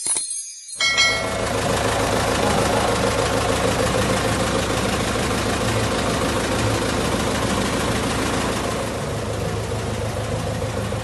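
Engine of an amusement-park train's replica steam locomotive idling, starting about a second in. It gives a steady low beat with an even hiss over it.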